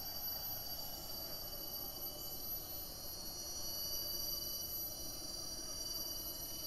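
Rainforest insects calling together: several steady, high-pitched tones layered into an unbroken drone.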